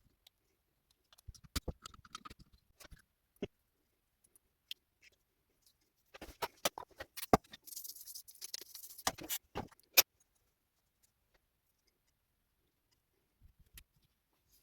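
Small clicks and light taps of carburettor parts being handled during reassembly. A denser run of clicks with a hissy, rustling noise comes about six to nine seconds in, followed by one sharp click at about ten seconds.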